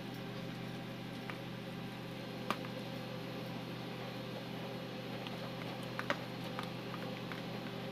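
Steady low hum with a few short clicks and taps from hands handling raw marinated chicken in a plastic tub: one about two and a half seconds in and a quick pair about six seconds in.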